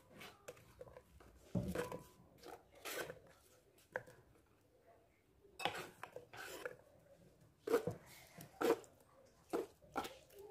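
Cut cucumber and orange pieces being scraped off a wooden chopping board with a knife and dropping into a glass blender jar: a string of irregular knocks, clinks and scrapes.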